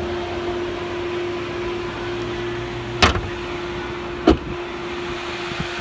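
Front trunk (frunk) lid of a 2013 Tesla Model S being shut: two sharp knocks, about three and four seconds in, the second the louder, as the hood comes down and latches. A steady hum runs underneath.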